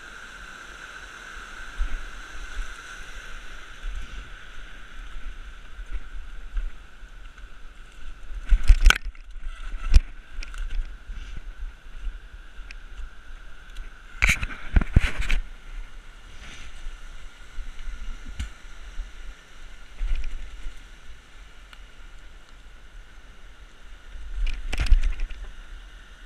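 Steady rush of a fast-flowing river under the jolts of a bike riding a rough path, with sharp knocks and rattles in clusters about a third of the way in, just past halfway, and near the end.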